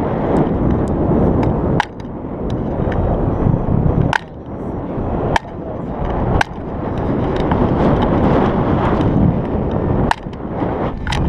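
Heavy wind noise from the airflow of paragliding flight buffeting an action camera's microphone. The rush swells and then cuts back sharply several times, each drop marked by a sharp click.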